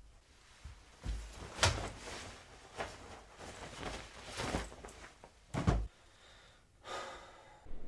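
A string of separate knocks and thumps indoors, about six in all, two of them louder than the rest: things being handled, like doors or drawers being opened and shut.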